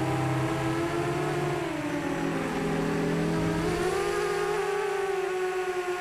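Whine of an RC aircraft's electric motor and propeller heard from on board, a steady tone whose pitch sags about two seconds in and rises again about a second later as the throttle changes.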